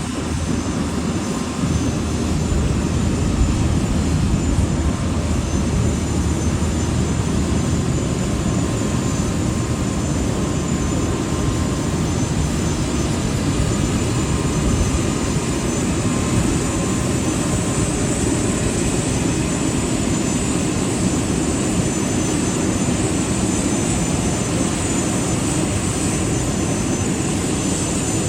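Steady aircraft noise while an Airbus A380 is towed: a loud low rumble with a thin high whine on top.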